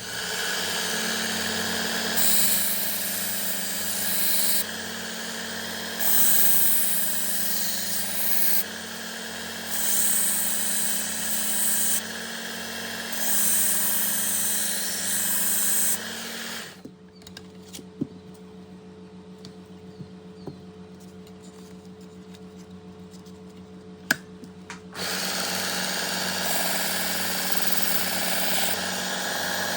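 Work Sharp Ken Onion Edition belt sharpener with the blade grinding attachment, switched on and running with a steady motor hum. Knife blades are drawn across the abrasive belt in repeated passes, each a bright grinding hiss lasting one to two seconds. About 17 s in it drops to a quieter hum with a few light clicks for several seconds, then the full running sound returns about 25 s in.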